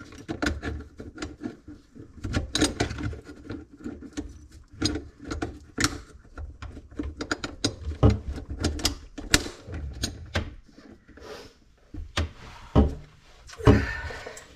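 Irregular metallic clicks, clinks and knocks of garbage disposal mounting hardware being handled and fitted under a sink, with a few louder knocks near the end.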